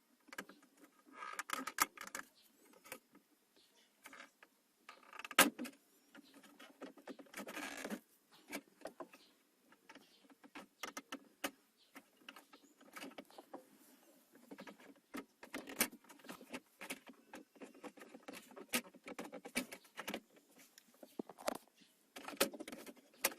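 Plastic gear-shift indicator trim of a Toyota Vios being pried and worked loose from its clips by hand: scattered clicks, taps and scraping, with one sharp click about five seconds in.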